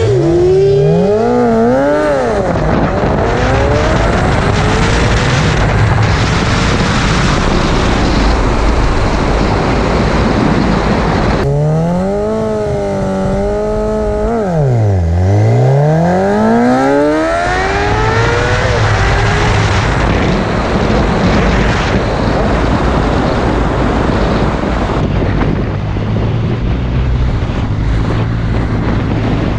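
600cc inline-four sport bike engine accelerating hard through the gears, its pitch climbing and dropping at the shifts. About halfway it dips low, then climbs again in a long rise. From about twenty seconds in it settles to steady running.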